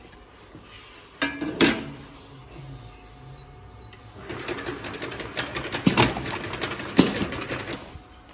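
Clamp labeling machine running a bottle through a labeling cycle: a few clicks about a second in, then from about four seconds in a busy mechanical clatter with two sharp knocks about a second apart.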